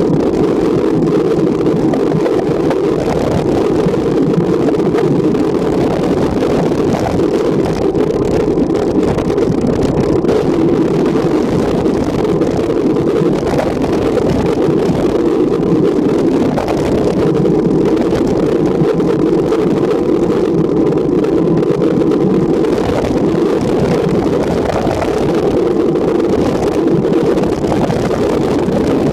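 Steady wind rush on the microphone of a bicycle-mounted camera while riding at speed, a constant even roar with no breaks.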